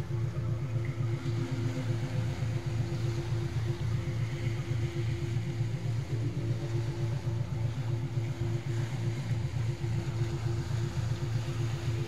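A low synthesized meditation drone, billed as a 3.5 Hz tone, pulsing in an even rapid rhythm, with a few fainter higher held tones above it. Soft sea waves wash beneath it.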